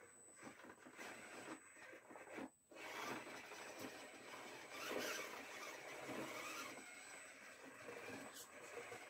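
RGT Bowler 1/10 RC crawler's electric motor and geared drivetrain whirring unevenly as it crawls up and over wooden ramps, swelling and easing with the throttle. The sound drops out briefly about two and a half seconds in.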